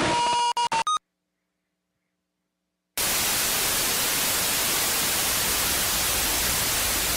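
Radio receiver static: a hiss with faint steady tones that stutters and cuts out just under a second in. After about two seconds of dead silence, a steady hiss of static comes back on.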